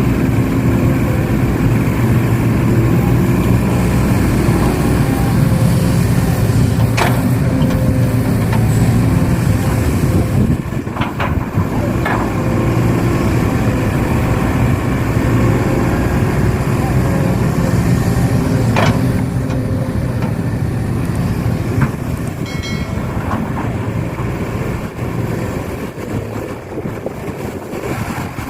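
Heavy-equipment engine running steadily, with a few sharp clanks.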